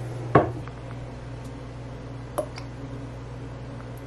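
Kitchen handling noises: a sharp knock of a dish or container set down on the counter about a third of a second in, then a softer click about two seconds later, over a steady low hum.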